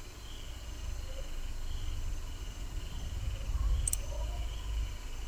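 Quiet background: a low rumble under a faint, steady, high-pitched chirring, with one short sharp click about four seconds in.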